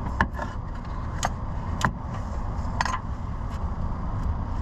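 Scattered sharp metallic clicks and clinks, about seven, irregularly spaced, as a socket and ratchet are worked onto a crusty, corroded oxygen sensor. A steady low rumble lies underneath.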